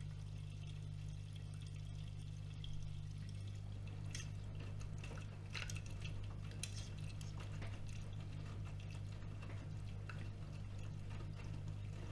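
AEG Öko-Lavamat washing machine mid-cycle: water sloshing and splashing inside the drum, with scattered small splashes, over a steady low hum.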